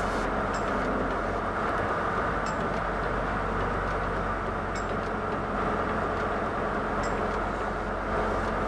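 Fishing boat's engine running steadily underway, a loud even drone heard from inside the cabin, with a few faint ticks about two seconds apart.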